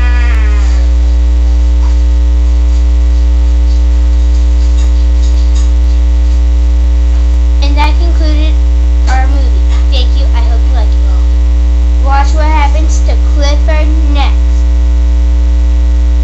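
Loud, steady electrical mains hum with a ladder of even overtones, unbroken across the whole stretch.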